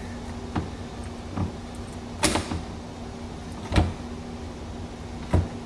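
A hand cutter shortening a rubber coolant hose: five sharp snaps, a second or so apart, as the blade bites through, the middle two loudest.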